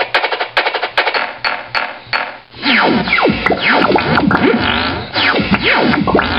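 Electronic sound effects: a quick train of short noise bursts, a few a second, then from about two and a half seconds in a dense tangle of swooping synthesizer glides, mostly falling in pitch.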